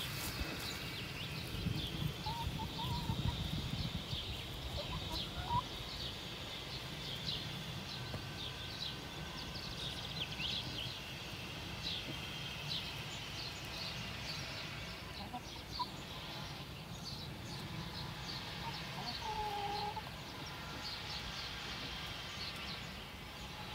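Free-range hens and a rooster clucking quietly now and then, with a brief low cluck about two seconds in and another near twenty seconds, over a faint low rumble and many short high chirps throughout.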